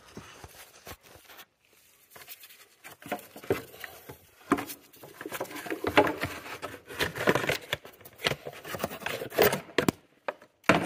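Irregular clicks, knocks and scraping of hands and parts being handled in a car's engine bay, sparse at first and busier from about halfway through.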